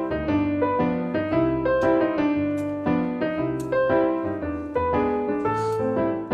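Background piano music: a gentle melody of plucked-sounding keyboard notes with chords underneath, several notes a second.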